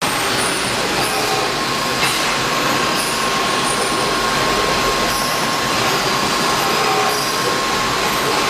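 XK7124 CNC milling machine running: steady machine noise with a thin, steady high whine running through it.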